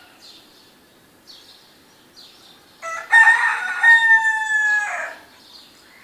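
A rooster crows once, a loud crow of about two seconds starting near the middle. Faint chirps of small birds repeat about once a second around it.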